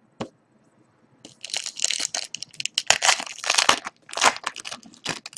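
Foil trading-card pack wrapper being torn open and crinkled by hand: a dense run of crackling and rustling that starts about a second in and lasts almost to the end, after a single light tap of cards just before.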